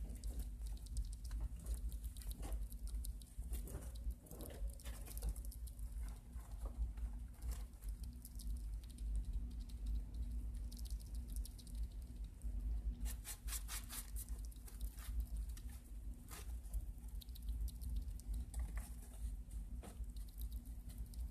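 Pet rat chewing and nibbling a piece of chicken salad held in its front paws: a run of small sharp clicks and soft crunches, with a quicker burst of clicks about thirteen seconds in. A steady low hum runs underneath.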